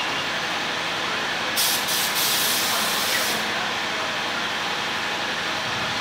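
A steady rushing background noise. About a second and a half in, two or three short spurts run into one loud hiss that lasts nearly two seconds, like air or spray being released.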